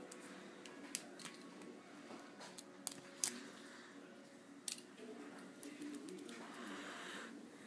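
A steel rake pick scraping in a Master Lock No. 140 padlock's keyway as it rakes the pin tumblers, with a few sharp metallic clicks about 1, 3 and 4.7 seconds in.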